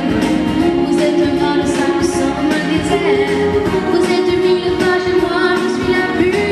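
A girl singing into a handheld microphone, amplified. She holds long notes, stepping up in pitch about three seconds in.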